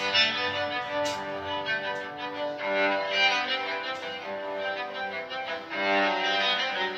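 Background music: a violin playing a melody of held notes.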